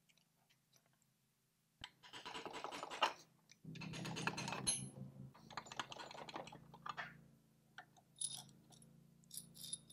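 Main bearing caps being worked loose by hand from a 2.0 TSI engine block: faint metal clicking, scraping and rattling in short clusters, starting about two seconds in.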